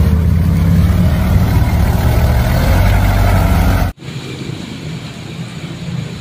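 A motor vehicle's engine running steadily and loudly, cut off abruptly about four seconds in, then a quieter engine-like rumble.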